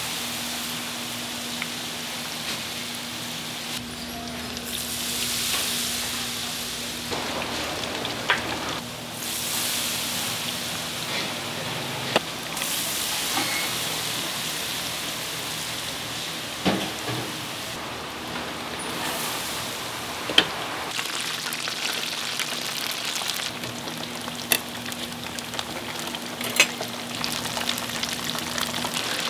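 Battered fritters (twigim) frying in a large steel deep fryer, the hot oil sizzling and bubbling with a steady hiss. Six or so sharp metal clicks at irregular intervals, from the cook's utensil knocking on the fryer's steel edge.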